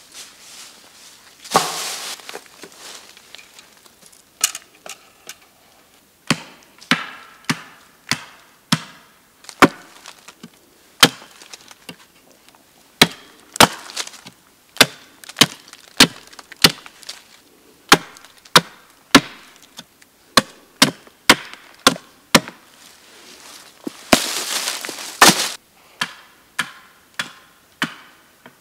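Wood being chopped: a long series of sharp, separate strikes on wood, roughly one or two a second and unevenly spaced. Two longer noisy stretches break in, one near the start and one near the end.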